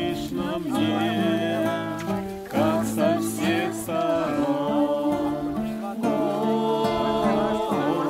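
An acoustic guitar is played while a small group of voices sings along.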